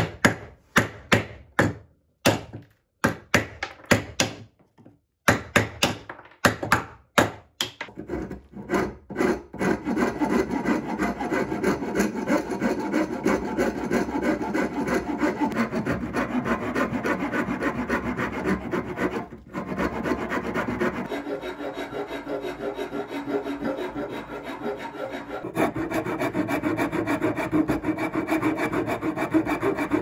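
A hand tool with a thin metal shank worked back and forth through a clamped wooden block, scraping and cutting the wood. At first the strokes are separate, about two a second; after about eight seconds they run together into fast, continuous rubbing with one brief break.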